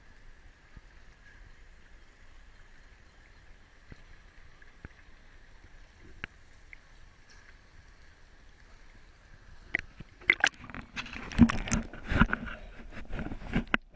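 Muffled water sounds picked up by a waterproof camera at the sea surface: a faint steady hiss with a few light clicks. About ten seconds in, loud irregular splashing and bubbling starts as the camera dips below the surface.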